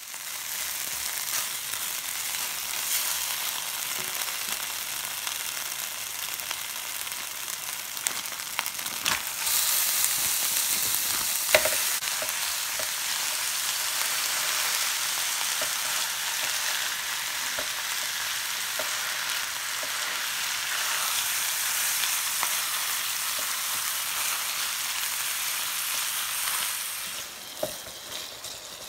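Ground beef and pork chorizo sizzling steadily as they fry in a pan, with a few sharp knocks, the loudest about eleven and a half seconds in. Near the end the sizzle quietens and a spatula stirs the meat.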